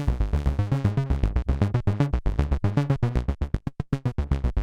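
PWM Malevolent synthesizer playing its 'Waves' patch: an arpeggiator running a rapid, even stream of short notes over a strong bass, both oscillators slightly detuned against each other for a thick, chorus-like sound.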